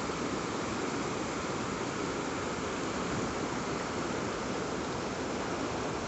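Steady rushing of a muddy river in flood, its high brown water churning over rapids.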